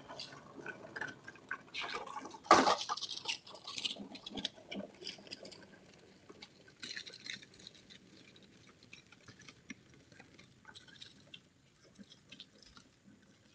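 Push lawn sweeper's brushes and gears giving a fast, irregular clatter as it is wheeled over the lawn. It is loudest about two to three seconds in, with one sharp clack, then fades to faint ticking as the sweeper moves away.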